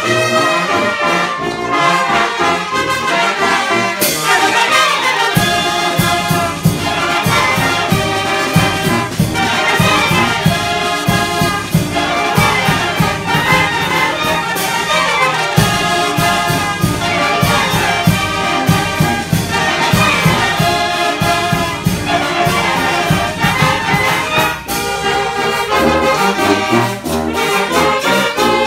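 Youth Oaxacan wind band playing together: clarinets and saxophones carrying the melody over trumpets, trombones and sousaphones. A heavier low bass line with a steady beat comes in about five seconds in and thins out again near the end.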